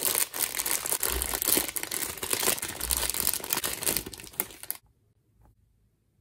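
Thin clear plastic bag crinkling and crackling as it is handled and pulled off a squishy toy, loud and dense with many small sharp crackles. It cuts off suddenly near the end.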